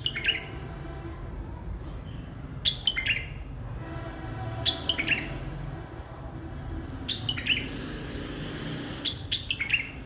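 White-eared bulbul singing: five short phrases of quick, clear notes falling in pitch, coming about every two seconds.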